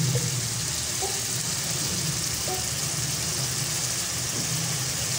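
Tomato-and-spice masala sizzling as it fries in oil in a kadhai, over a steady low hum.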